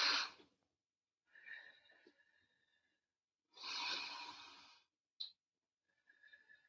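A woman's audible breathing during a Pilates leg-kick exercise: a strong breath tailing off at the start, a faint one about a second and a half in, and another long breath from about three and a half seconds in. There is a short click about five seconds in.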